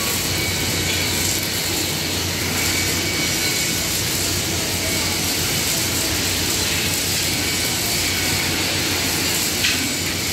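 Steady steel-fabrication shop noise: a low, constant electrical hum under a dense hiss, with arc welding on steel tube at the start and one small knock near the end.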